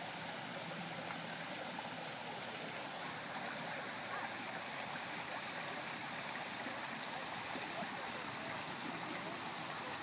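Small waterfall and rock-lined stream: water running and splashing over stones in a steady rush.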